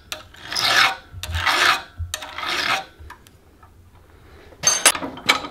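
Hand file rasping across the steel raker (depth) gauges of a chainsaw chain clamped in a vise, three strokes about a second apart. A few sharp metallic clinks follow near the end.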